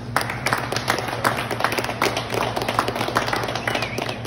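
A small group of people clapping, a quick irregular patter of hand claps, over a steady low hum.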